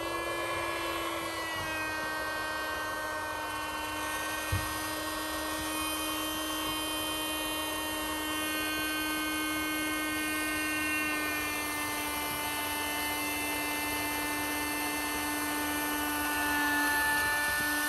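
Handheld electric air pump spinning up and running steadily as it inflates a small Luno air-mattress insert, its pitch sagging slightly as the insert fills. One brief knock about four seconds in, and the pump winds down in pitch as it is switched off at the end.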